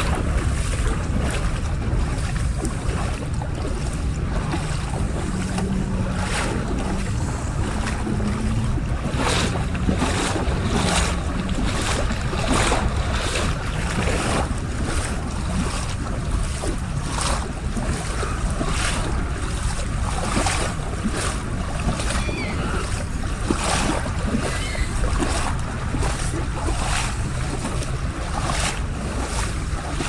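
Small lake waves lapping at the shoreline while bare feet splash through ankle-deep water, about one splash a second. Wind rumbles on the microphone throughout.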